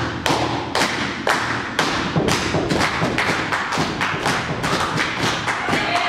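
A group of people clapping their hands and stomping their feet together in a quick, even rhythm.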